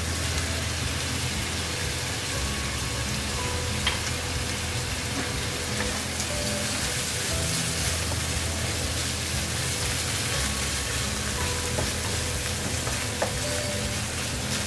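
Ground pork sizzling and frying in a non-stick pan with soy sauce just added, stirred with a plastic spatula; a steady hiss with a couple of light clicks of the spatula against the pan.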